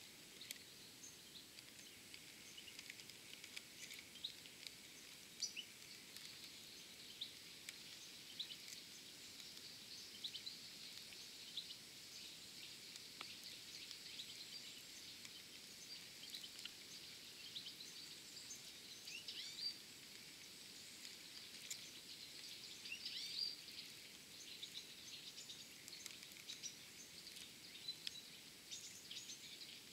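Faint bird chirps and short calls, scattered irregularly over a low steady hiss.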